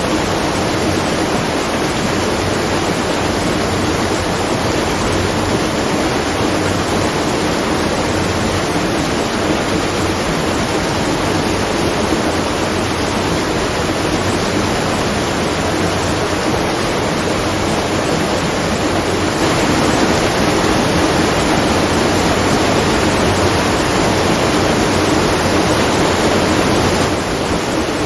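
Steady rush of water pouring at a watermill, a continuous even splashing with no rhythm, a little louder for several seconds past the middle.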